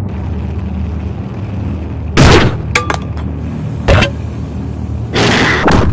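Horror-film sound design: a steady low engine-like drone under loud crashing impacts, one about two seconds in, another near four seconds, and a longer, noisier crash near the end.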